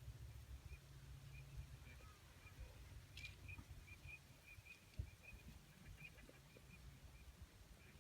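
Faint, distant bird calls: a string of short high notes repeated irregularly, over a low rumble of wind or handling noise, with a single soft thump about five seconds in.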